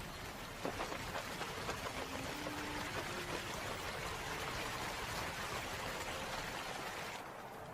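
Running water: a steady, even rush of flowing water that cuts off suddenly shortly before the end.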